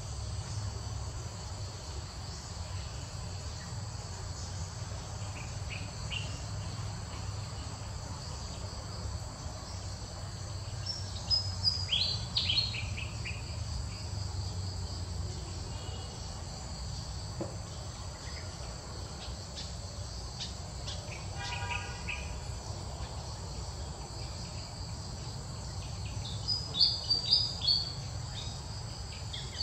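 Steady high-pitched insect chirring, with two brief clusters of louder, short, falling chirps about eleven and twenty-seven seconds in.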